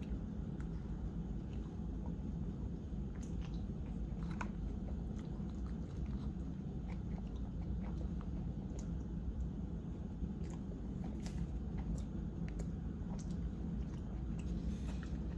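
A person chewing mouthfuls of pesto pasta, with scattered small mouth clicks, over a steady low hum.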